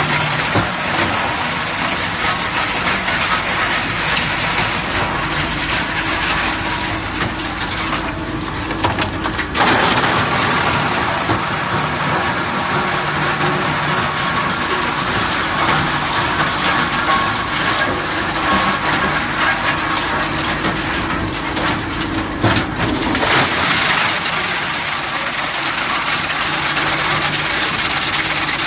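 A GX428 132 kW drum wood chipper running and chipping wood: steady, loud machine noise with crunching and crackling as material goes through the drum. About eight seconds in the noise thins for a moment, then comes back at full strength near ten seconds.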